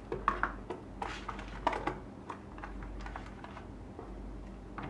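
A scatter of light clicks and taps from handling a plastic handheld meter case while opening its battery compartment.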